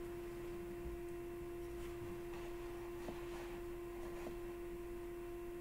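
Faint steady electrical hum at one constant pitch with fainter overtones, over quiet room tone, with a few faint soft ticks around the middle.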